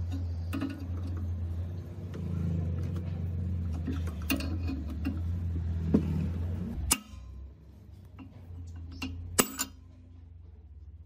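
Metal clicks and clanks from a wrench turning the forcing screw of a three-jaw gear puller that is drawing the belt pulley off an old air compressor. A steady low hum runs underneath and drops away sharply about seven seconds in.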